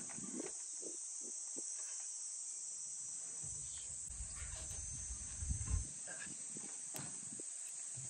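A steady, high-pitched chorus of insects chirring. A low rumble comes in about three and a half seconds in and dies away near six seconds, with a few faint knocks.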